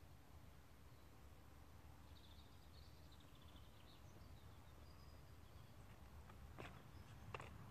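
Near silence: faint outdoor ambience with a few faint bird chirps, and two faint clicks near the end.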